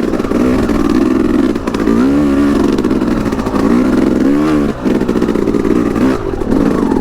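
Yamaha YZ250X's single-cylinder two-stroke engine chugging at low revs up a rocky hill climb, the revs rising and falling as the throttle is worked.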